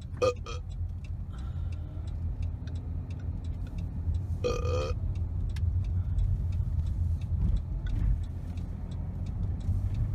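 A man burping: one short burp right at the start and a longer, louder one about four and a half seconds in, over the low steady rumble of a car.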